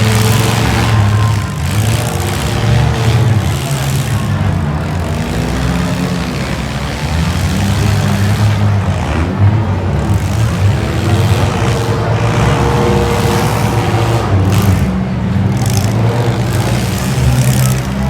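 Engines of several compact demolition-derby cars running together, loud and steady, with the pitch shifting a little now and then.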